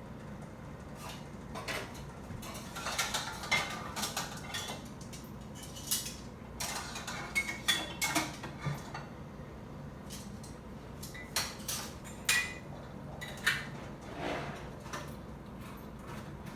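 Kitchen clatter of a glass canning jar and utensils: short, irregular clinks and knocks as a jar of zucchini pickles is finished.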